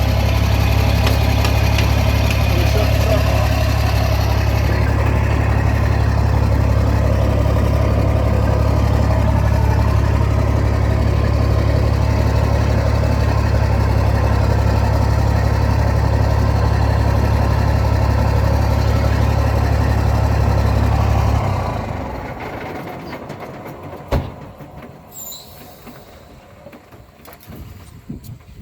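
Peterbilt 387 semi truck's diesel engine idling steadily with a deep, even hum, then stopping about three quarters of the way through, leaving a quiet background with a single sharp click.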